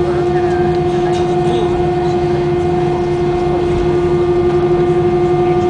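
Steady cabin drone of an Airbus A320 on the ground with its engines idling, carrying one constant mid-pitched tone with no rise or fall.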